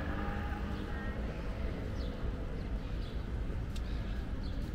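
Outdoor street ambience: a steady low rumble, with a few faint short high chirps and light clicks over it.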